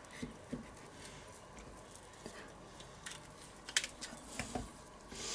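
Faint, scattered clicks and light knocks of food being handled at a wooden cutting board: a knife cutting onion on the board and meat being pushed onto a long metal grill skewer.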